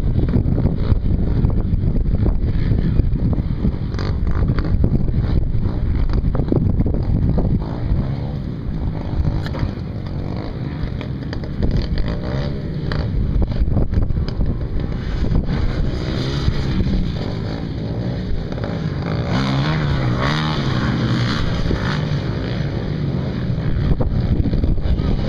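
Dirt bike engines revving up and down as riders lap a motocross track, the pitch rising and falling, clearest in the second half, over wind buffeting the microphone.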